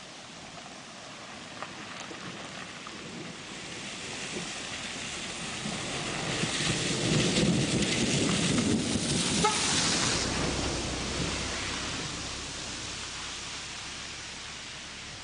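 A long roll of thunder over steady rain. The rumble builds over several seconds, is loudest about seven to ten seconds in, and then slowly fades.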